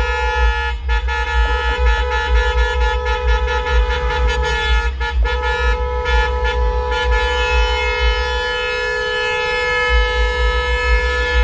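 Car horns honking continuously, several steady horn tones overlapping and held almost without a break, over a low rumble.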